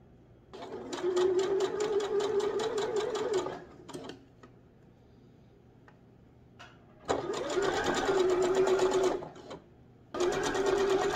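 Domestic electric sewing machine stitching layers of lace onto a top's neckline in three runs of a few seconds each, rapid even needle strokes over a steady motor hum. A few short clicks sound in the pauses between runs.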